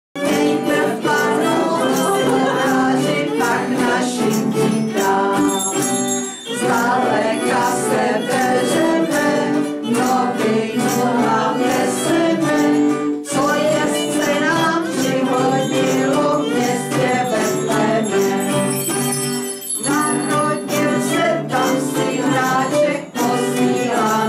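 Christmas music with jingle bells, starting abruptly out of silence and breaking briefly between phrases about every six to seven seconds.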